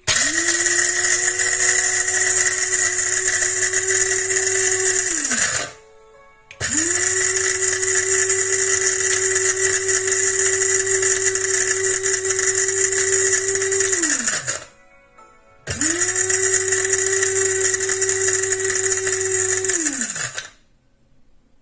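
Small electric grinder running in three pulses of roughly five to eight seconds each, grinding peanuts and almonds into powder. Each pulse comes up quickly to a steady high whine and winds down in pitch when the button is released, with short pauses between.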